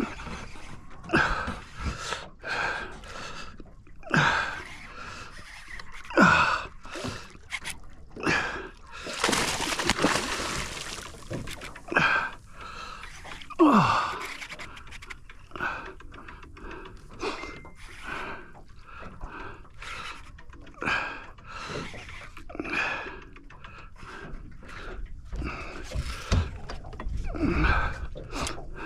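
An angler breathing hard, with repeated gasps and huffs, while fighting a hooked barramundi. A short burst of rushing noise comes about nine seconds in.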